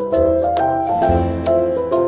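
Background music: piano or keyboard notes over a bass line with a steady beat.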